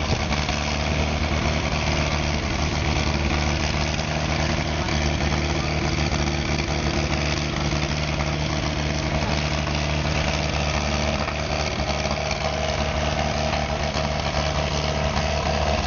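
A large vehicle engine running steadily at a constant speed, an even drone that holds the same pitch throughout.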